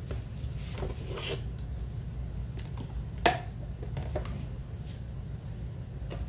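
A few light clicks and taps from handling a deck of oracle cards, with one sharper click about three seconds in, over a steady low hum.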